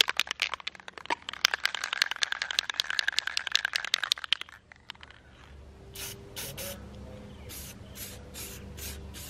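Aerosol can of Rust-Oleum Crystal Clear Enamel: for about the first four seconds a fast run of rattling clicks, as of the can being shaken with its mixing ball. Then, from about six seconds in, a series of short spray hisses from the nozzle as the clear coat goes on.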